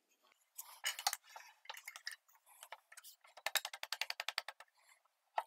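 Faint light clicks and clinks of tools being handled on a table saw while its blade height is set with a small measuring gauge, with a quick run of about a dozen even ticks about three and a half seconds in and a sharp click near the end.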